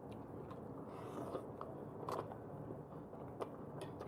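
A person chewing food with the mouth close to the microphone, with a few short, sharp clicks scattered through.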